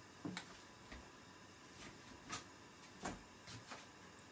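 Dark sauce for tendon heating in a saucepan on a gas stove, with faint, irregular pops and ticks of bubbles over a low hiss; the loudest pops come about two and three seconds in.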